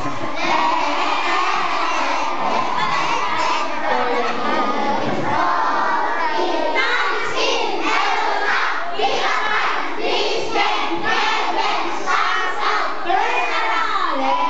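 A roomful of young children shouting and cheering all at once, a loud, unbroken din of many excited voices.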